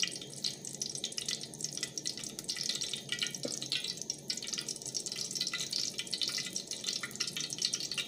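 Cooking oil heating in a steel pot, sizzling with a dense, steady run of small crackles and pops.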